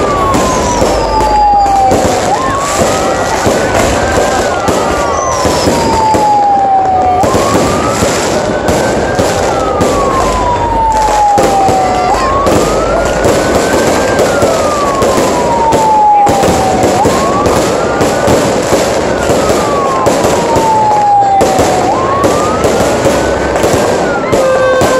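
Fireworks going off close overhead: a dense, continuous crackle of exploding stars and sharp bangs. Through it a siren-like wail rises and falls, about once every five seconds.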